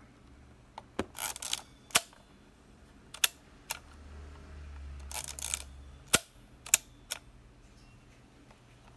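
Konica Auto S rangefinder camera being worked by hand: its film advance lever is wound with a short ratcheting rasp, and its leaf shutter is fired with a sharp click. This happens twice, about a second in and again about five seconds in, with a few more single mechanical clicks in between and after.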